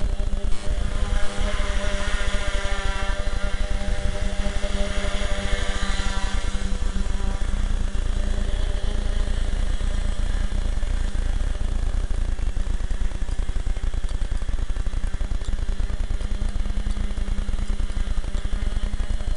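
A tricopter's electric motors and propellers whirring, the pitch rising and falling over the first several seconds, then running steadily over a constant low rumble.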